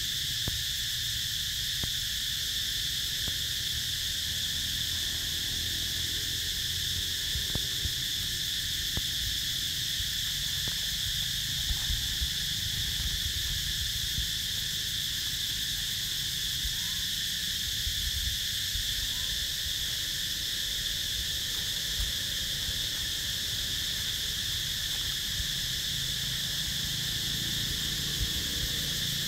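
Steady, unbroken chorus of insects droning in several high pitches, with a low rumble beneath and a few faint ticks.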